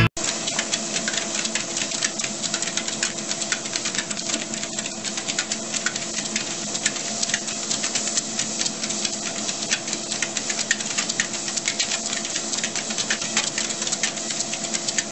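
Motorized treadmill running with a steady hum, overlaid by fast, irregular clicking of two corgis' claws and paws pattering on the moving belt as they trot.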